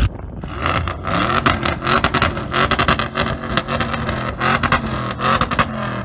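Audi RS6 Avant's twin-turbo V8 being revved repeatedly at a standstill, the pitch climbing and falling several times, with rapid crackles and pops from the exhaust.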